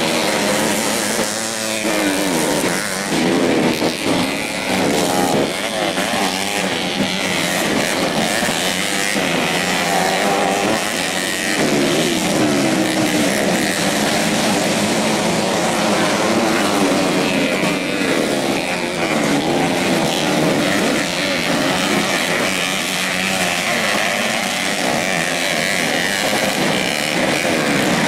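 Several modified 125 cc four-stroke underbone motorcycles racing on a dirt track, their engines revving up and down over one another.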